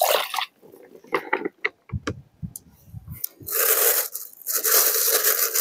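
Rustling and crackling handling noise: scattered small clicks and crunches, then a steadier rustling from about three and a half seconds in.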